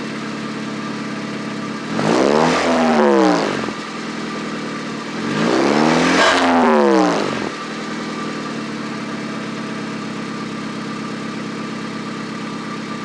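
A vehicle engine idles with an exhaust leak from broken exhaust bolts. It is revved twice, the pitch rising and falling back to idle each time.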